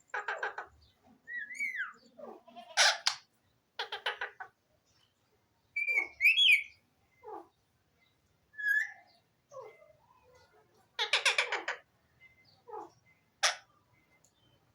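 Alexandrine parakeet calling: loud, harsh screeches in short bursts, a longer run of them about two-thirds of the way in. Between them come brief whistled notes that rise and fall.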